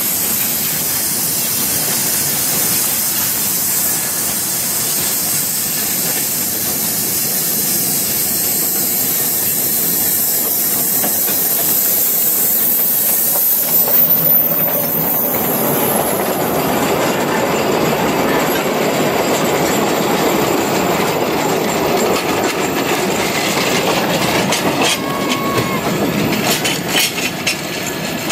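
Small narrow-gauge steam locomotive hauling tourist wagons past: a steady hiss of steam as it approaches, loudest as the engine passes about halfway through. Then the rumble and clatter of the wagons' wheels on the rails, with a few sharp clicks near the end.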